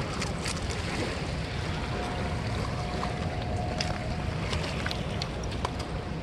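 Steady rush of fast-flowing river water, with wind on the microphone and a few small clicks.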